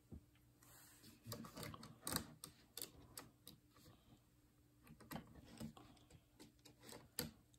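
Plastic Lego pieces clicking as they are handled and pressed together: an irregular scatter of small clicks, the loudest about two seconds in and another shortly before the end.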